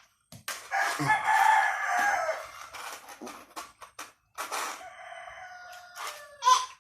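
Six-month-old gamecock stag crowing: one loud, rough crow about two seconds long, then a fainter, thinner call near the end.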